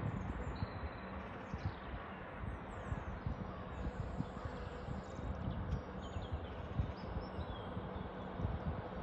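Diesel multiple unit train pulling away and coming round a curve, its engine a low steady rumble with a faint hum. Birds chirp and tweet over it with many short high calls.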